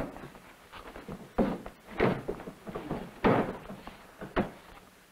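About four dull knocks and thumps, a second or so apart, from the wooden bed and cabinet of a beauty machine as a person is pushed onto it, with faint handling noise between them.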